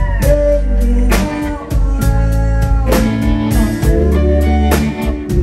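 A band playing live, with electric guitars, bass and a drum kit keeping a steady beat.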